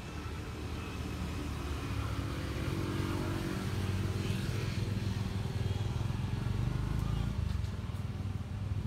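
Low rumble of a motor vehicle engine running, growing louder about two seconds in and holding steady.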